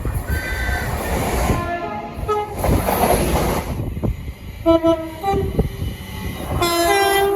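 Train horn sounding several short blasts, each a chord of several tones, the last one longer near the end, over the low rumble of the train.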